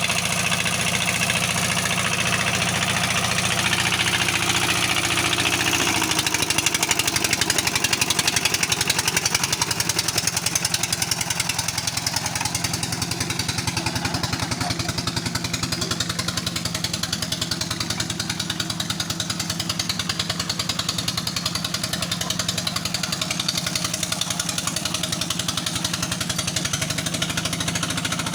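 Heavy-equipment diesel engine running steadily, with a fast, even pulsing beat.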